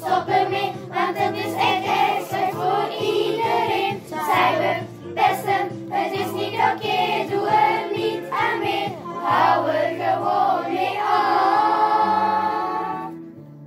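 A class of children singing in unison over a pop backing track, ending on a long held note about eleven seconds in that cuts off just before the end.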